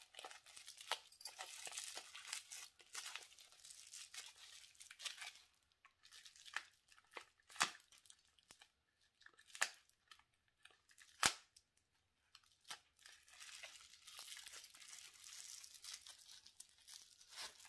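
Clear plastic wrapping being torn open and crinkled by hand. It crinkles for several seconds, goes quiet apart from a few sharp clicks, then crinkles again near the end.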